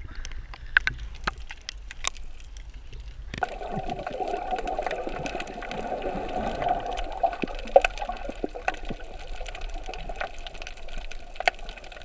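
Water splashing and lapping against an action camera's housing at the surface. About three and a half seconds in the camera goes under, and the sound turns suddenly to a muffled underwater rushing and gurgling.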